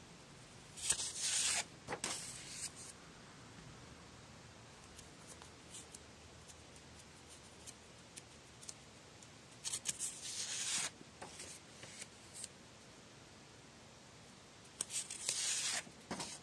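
Sheets of paper rustling as pages of a stack of printed model sheets are handled and turned, three times: near the start, about ten seconds in and near the end.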